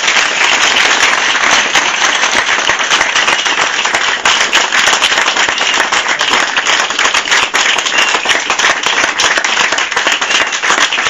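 Audience applauding: loud, dense clapping from many hands that holds steady throughout.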